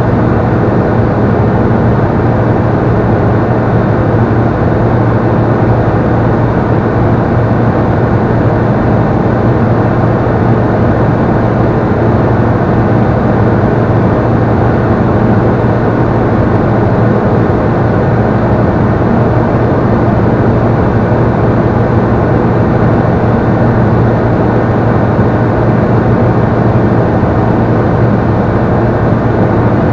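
Steady cockpit drone of a Robin CDI light aircraft in cruise: the turbodiesel engine and propeller running at constant power, with airflow noise over the canopy.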